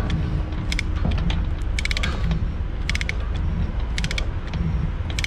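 Ratchet-type chain load binder being tightened, its pawl giving a short burst of clicks with each pump of the handle, about once a second, over a steady low rumble.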